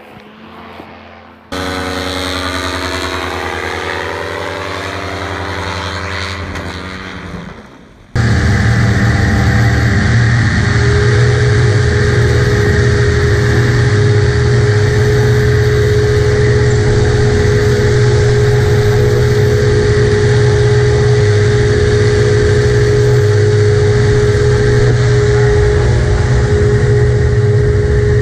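Paramotor trike engine and propeller running steadily and very loud, heard close up from the pilot's seat, after a sudden cut about eight seconds in. Before the cut, a quieter engine drone with a steady pitch.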